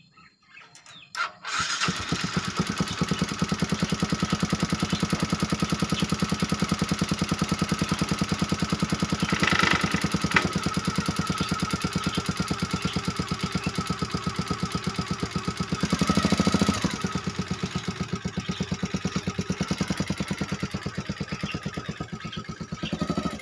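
Yamaha Jupiter MX 135 motorcycle engine, a single-cylinder four-stroke fitted to a homemade mini car, starts about a second and a half in and then idles with an even, rapid pulse. It is revved up briefly twice, near the middle and again about two-thirds of the way through.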